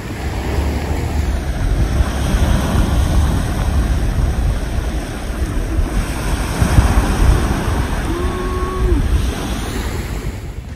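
Wind buffeting the microphone over surf washing onto a pebbly shore, with a short held tone about eight seconds in.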